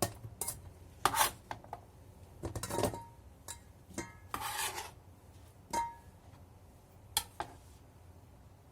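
Kitchen clatter as cut carrot is moved into a container: scattered clinks and knocks of a knife and dish, a few ringing briefly, with a short scrape about four and a half seconds in.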